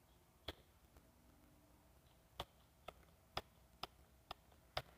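Near silence: room tone with faint clicks, one about half a second in and then a light, fairly even run of about six clicks, roughly two a second, in the second half.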